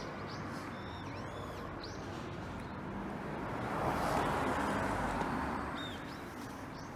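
Steady low background rumble that swells for a couple of seconds midway, with a few short bird chirps.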